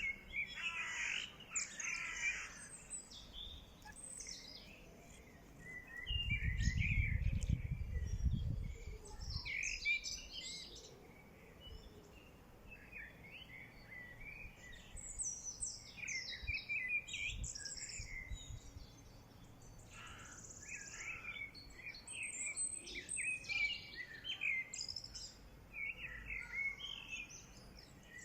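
Songbirds singing outdoors, several short chirping phrases one after another. A low rumble, the loudest sound, comes in about six seconds in and lasts roughly three seconds.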